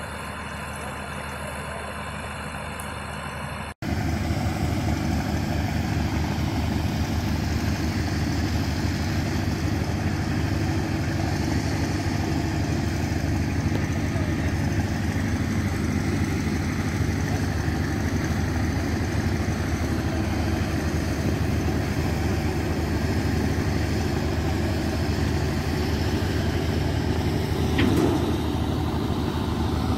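Tractor engine running steadily while pulling a mixer feed wagon that is unloading feed along a trough. A cut about four seconds in brings the engine closer and louder, and a brief knock comes near the end.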